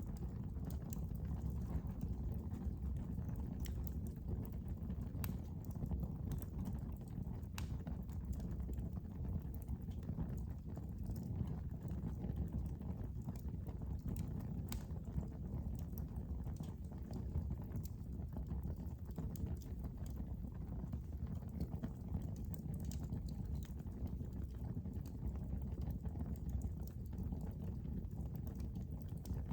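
Wood fire burning in a fireplace: a steady low rumble with irregular crackles and pops scattered throughout.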